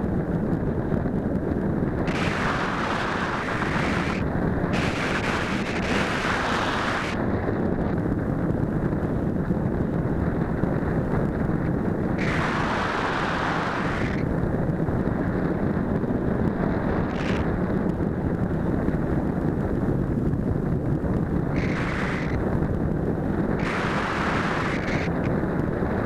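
Wind rushing over the microphone of a keychain camera on the wing of a gliding RC sailplane: a steady buffeting rumble, with hissier gusts of a second or two breaking in several times.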